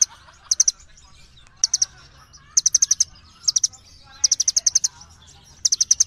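A small songbird calling in short bursts of rapid, sharp, high chirps, about six bursts spaced roughly a second apart.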